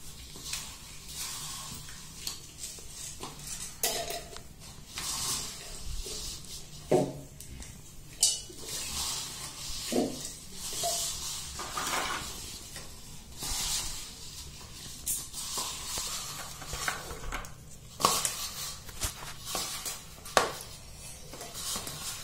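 Irregular kitchen handling sounds: taps and clinks of Oreo biscuits and hands against a steel mixer-grinder jar and plastic bowls, with soft rustling and a few sharper clicks. The grinder motor is not running.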